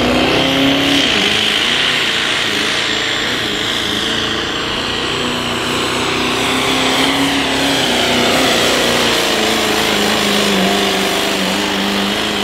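Ford Super Duty's 6.7 Power Stroke turbo-diesel V8 held near full throttle while it drags a weight-transfer pulling sled. The revs dip briefly about a second in, then hold steady, with a high whine above the engine.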